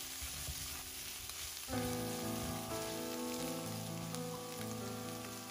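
Scrambled eggs and mushrooms sizzling in a hot nonstick wok as they are stir-fried, under background music; the music gets louder with a new phrase about two seconds in.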